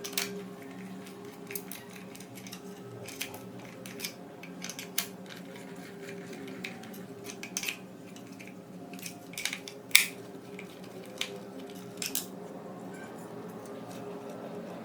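Scattered sharp clicks and taps of small plastic and metal parts, the screws and housing of a CCTV camera being handled and fastened, the loudest about ten seconds in, over a steady low hum.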